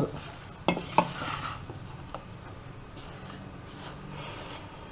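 A spoon stirring and scraping roasted wheat and rice flour in a saucepan, with two sharp knocks of the spoon against the pan about a second in.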